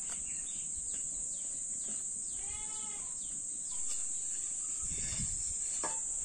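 Steady high-pitched insect chirring, with one short, wavering animal call about two and a half seconds in.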